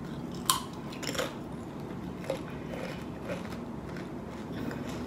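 A Doritos tortilla chip bitten with one sharp crunch about half a second in, then chewed with a few fainter crunches.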